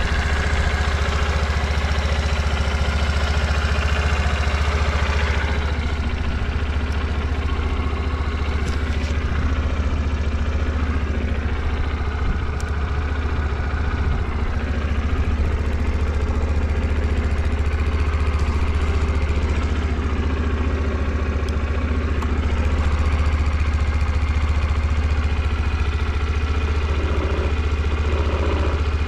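Suzuki GS50's small air-cooled four-stroke single-cylinder engine idling steadily. It runs quietly with no abnormal engine noise.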